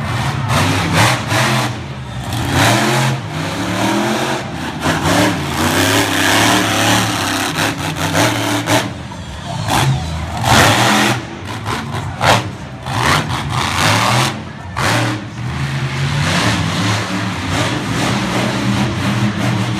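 Monster truck engine revving hard, its pitch climbing and falling again and again as the truck drives and jumps, with several sharp bangs along the way.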